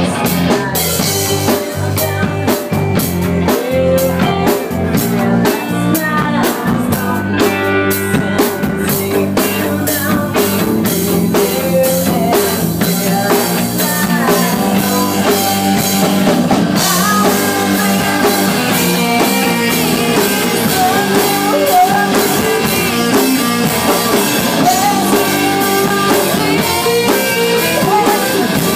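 Live rock band playing with drum kit, electric guitar and bass, and a singer on the microphone. Sharp, evenly spaced band hits in the first several seconds, then the full band plays on steadily.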